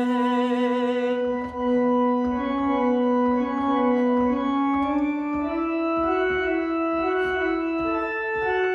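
A held sung note with vibrato ends about a second in, leaving instrumental accompaniment alone: sustained, organ-like keyboard notes moving in steps between phrases of the hymn.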